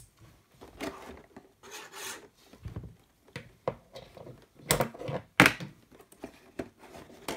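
Cardboard toy box being cut and opened by hand: scraping, rubbing and rasping of cardboard, with a sharp click at the start and two louder rasping strokes about five seconds in.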